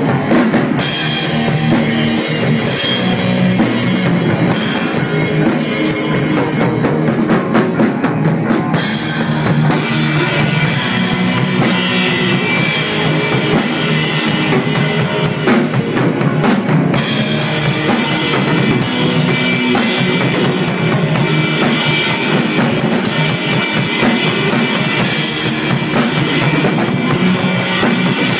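Stoner rock band playing a loud, steady passage: a drum kit with bass drum and snare, over electric guitar and bass.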